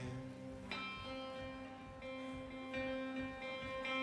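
Solo acoustic guitar picked in an instrumental break of a folk-blues song, with notes ringing on and a fresh plucked attack about three-quarters of a second in.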